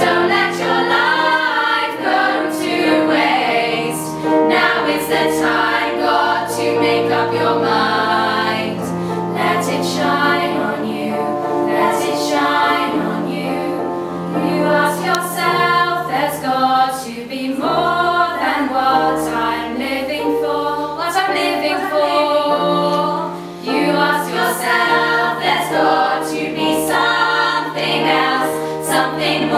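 Choral music: a choir of voices singing a flowing melody over held bass notes, with sharp percussive hits.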